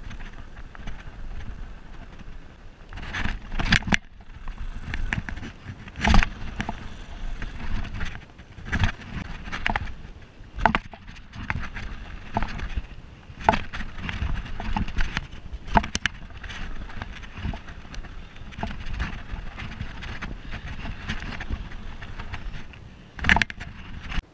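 Mountain bike descending a dirt trail: tyres rolling and crunching over dirt and gravel, with frequent clattering knocks as the bike hits bumps and lands. The loudest knocks come about six seconds in and just before the end.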